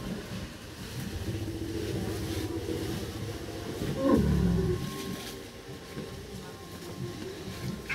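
Wild Asian elephant vocalising: about four seconds in, a call drops steeply in pitch into a deep rumble, the loudest sound here, over a low steady rumble.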